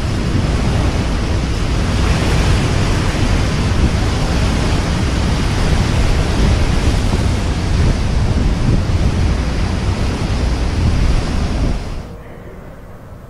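Hurricane-force wind with driving rain, blowing hard and buffeting the microphone with a deep rumble. It drops away suddenly near the end to a much quieter hiss.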